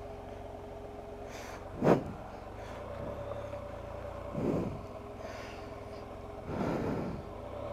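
2014 Can-Am Spyder RT's three-cylinder engine running with a steady hum. Three short noisy puffs break over it, the loudest about two seconds in.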